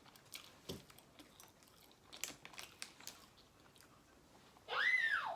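Faint chewing and crunching of food with scattered small mouth clicks. Near the end, a baby gives one loud, high squeal that rises and falls.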